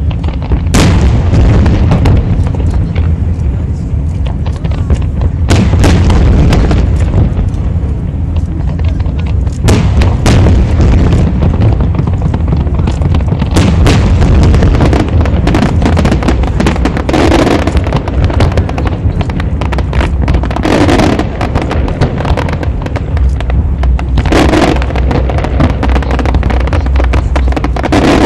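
Aerial fireworks shells bursting in a display: a string of loud booms and bangs every few seconds, some in quick pairs, over a steady low rumble.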